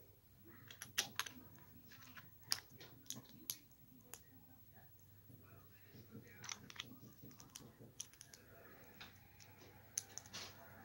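Small plastic Lego bricks clicking against each other and snapping together as they are handled and pressed on by hand: a string of sharp, irregular clicks, some louder than others.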